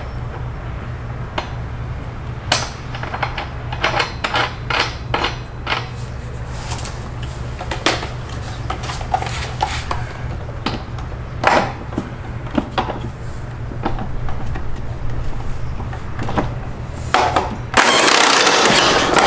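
Clinks, clicks and knocks of hand tools and metal parts while new mower blades are bolted onto the deck spindles, coming irregularly over a steady low hum. Near the end there is a louder rushing, scraping noise lasting about a second and a half.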